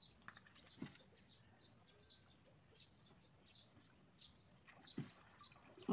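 Near silence, with faint high bird chirps repeating about twice a second and a couple of soft knocks.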